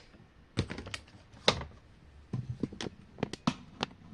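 Washing machine's control buttons or dial being worked: about a dozen sharp, irregular clicks and taps, some in quick runs of three or four.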